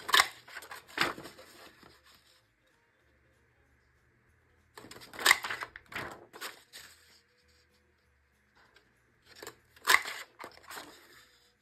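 Hand-held mountain border punch for paper pressed through cardstock three times, about every four to five seconds, each punch a quick cluster of sharp clicks as the blade cuts and springs back.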